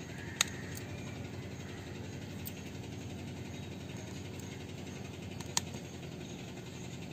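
Two sharp clicks about five seconds apart, with a few fainter ticks, as a fingernail presses lice against a stainless-steel plate to crush them. Steady low background noise underneath.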